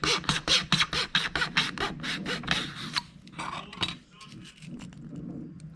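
Hand tool rasping back and forth on a plastic model-kit part in quick strokes, about five a second. The strokes are strongest over the first three seconds, then grow fainter and more scattered.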